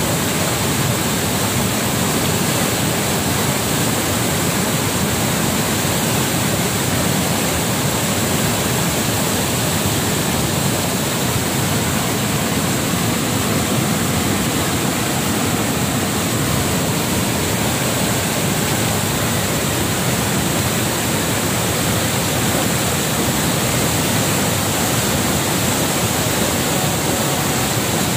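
Loud, steady rush of a river in flood: fast, muddy floodwater pouring over its banks.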